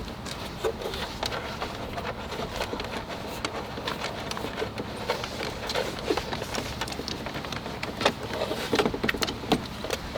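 Irregular clicks, taps and rustling from hands working on car parts, with no steady rhythm.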